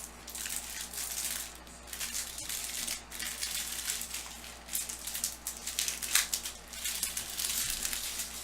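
Plastic and foil packaging of a trading-card hobby box crinkling and tearing as it is opened by hand, an irregular run of crackles.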